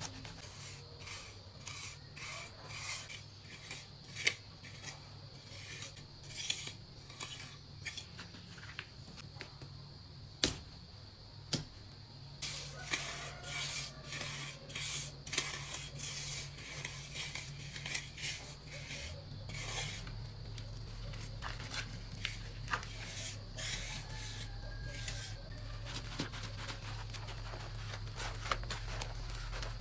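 Small steel trowel scraping across a wet cement floor screed in many short, irregular strokes, smoothing and polishing the surface after dry cement has been dusted onto it.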